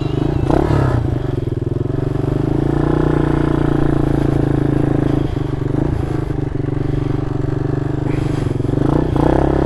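Mini motorcycle engine running steadily while riding, its note dipping slightly around the middle and picking up again near the end.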